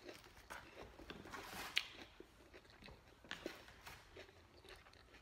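A person chewing a mouthful of lettuce salad with the mouth closed: faint, scattered crunches and clicks, the sharpest about two seconds in.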